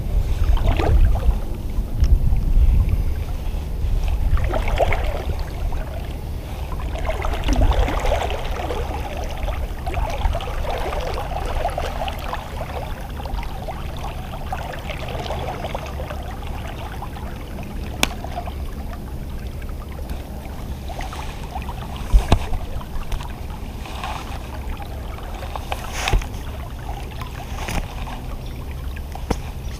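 River water sloshing and gurgling close to the microphone around a wading angler, over a steady low wind rumble on the mic. The swirling water is strongest in the first half, and a few sharp clicks come in the second half.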